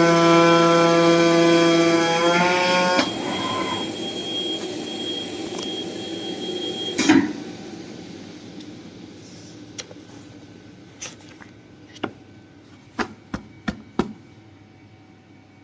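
CNC foam-cutting machine running with a steady hum that rises briefly in pitch and cuts off about three seconds in. Then a faint fading noise, one sharp click about seven seconds in, and a run of light clicks and knocks later on.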